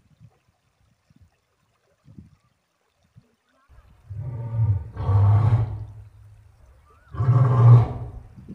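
A man's voice making two long, loud wordless cries, the first lasting about two and a half seconds and the second about a second, a little over a second apart.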